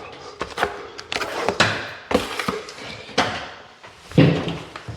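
A series of irregular scrapes and knocks from plastering tools loading freshly mixed setting compound (Easy Fill) for a ceiling patch.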